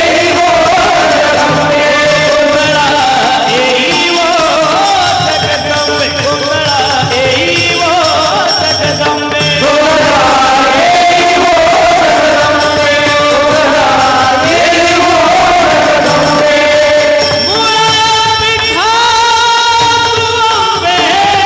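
Marathi devotional kirtan music: a gondhal song to the goddess Jagadamba, a melody with sliding notes sung over instrumental accompaniment and a regular drum beat.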